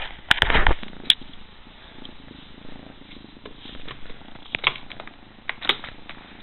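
Domestic cat purring close to the microphone: a faint, steady low rumble. Loud rustling and knocks in the first second, and a few sharp clicks later on.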